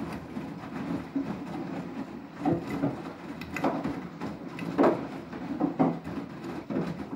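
Beko WTK104121W washing machine in its main wash: a steady motor hum as the drum turns, with irregular swishes and thuds from the wet load tumbling and water sloshing.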